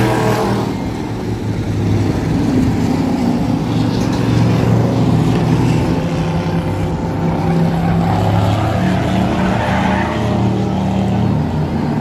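Race car engines running in a Crazy Trains race, where cars are chained together in threes. A loud, steady engine drone whose pitch shifts a little as the cars lap.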